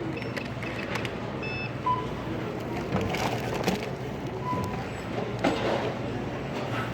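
Checkout-counter noise: several short electronic beeps from the register and scanner, over rustling and knocking of items being handled and bagged, against a steady store hum.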